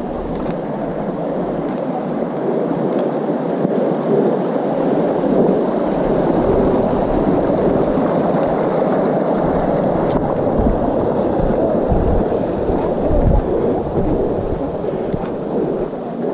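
Loud steady rushing noise on the microphone, with a couple of low thumps about twelve and thirteen seconds in.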